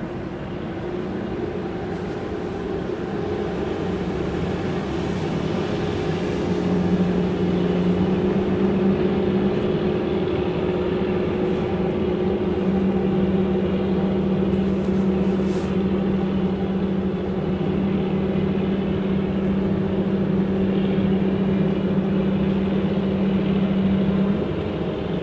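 Marine diesel engines of tugboats and a workboat running under way, a steady droning hum that swells a few seconds in and eases near the end.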